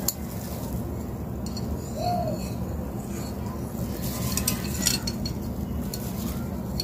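Light clinks and scrapes of a stainless-steel cutter against the glass mouth of a bottle, with a sharp click at the start and another about five seconds in, over steady low background noise.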